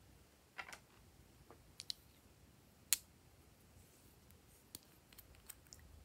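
A handful of small, sharp clicks and taps from glass nail polish bottles and their caps being handled and opened, spread irregularly, with the loudest click about three seconds in.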